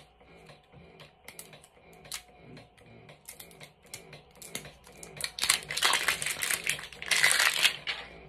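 Plastic wrapping on a bottle crinkling as it is handled and pulled at: light scattered crackles at first, then two loud stretches of crinkling about five and seven seconds in.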